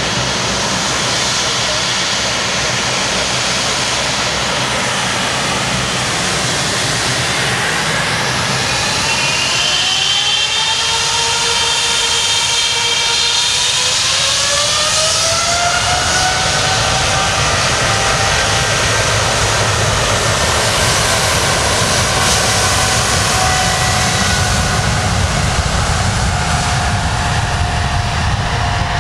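Boeing 777-300's twin jet engines running loud as it taxis onto the runway. About a third of the way in, their whine climbs in pitch for several seconds and then holds steady, with a deeper rumble building as the engines spool up for takeoff.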